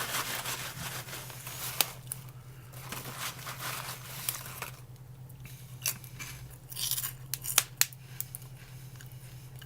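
Crisp, airy microwave pork rinds being handled and crunched: a rustling crackle in the first couple of seconds, then scattered sharp cracks and crunches in the second half.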